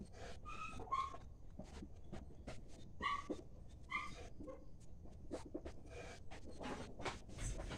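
Newborn piglets giving short, high squeaks, four in the first half, amid scattered clicks and shuffling in the farrowing pen.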